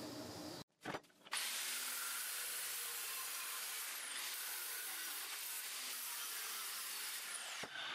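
Angle grinder cutting through a rusty steel bar from an old push mower, held in a vise. The motor's high whine starts about a second in, dips briefly around the middle, and winds down near the end.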